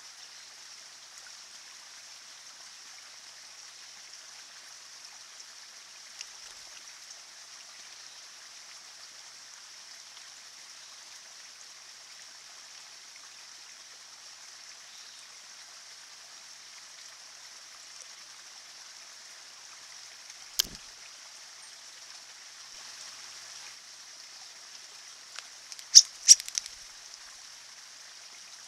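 Small man-made stream trickling steadily over slate rocks. A sharp click comes about two-thirds of the way through, and two louder clicks close together near the end.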